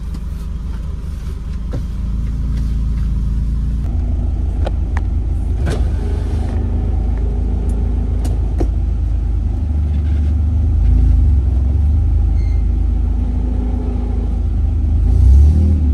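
Nissan Sentra's engine running as the car is driven on a test drive, a steady low rumble that builds a little over the first few seconds, with scattered light clicks and knocks.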